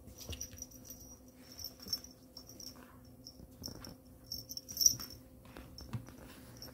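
Cats playing: a scatter of short scratches, clicks and rattles, with a sharper knock about five seconds in, over a steady low hum.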